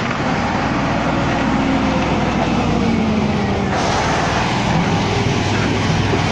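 Excavator's diesel engine running steadily, a loud, even machine noise with a low hum throughout.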